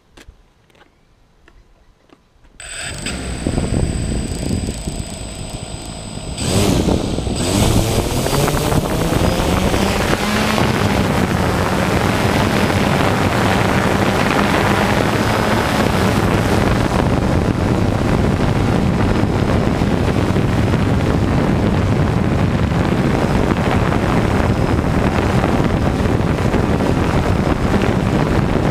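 A multirotor camera drone's electric motors and propellers start up about two and a half seconds in. They grow louder and rise in pitch as it lifts off about six to seven seconds in, then settle into a steady buzzing hum as it climbs and hovers, heard close up from the camera on the drone itself.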